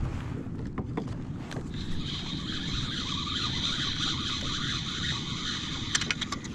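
Shimano Sahara 3000HG spinning reel being cranked: a steady high whir starting about two seconds in and stopping near the end with a few quick clicks. Wind on the microphone and water slapping the kayak run underneath.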